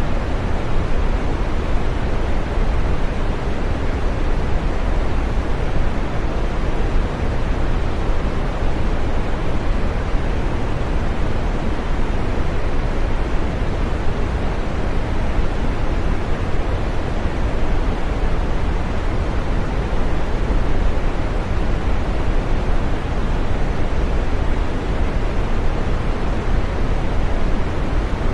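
Green noise: a steady, unchanging rush of noise, fullest in the low and middle range and thinning out toward the highs.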